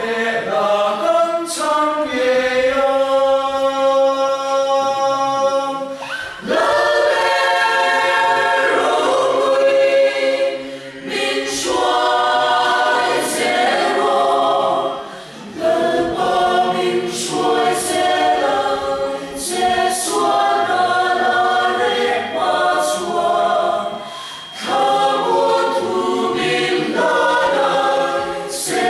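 Mixed choir of men and women singing in parts. A chord is held for about four seconds, then shorter phrases follow, each set off by a brief breath pause.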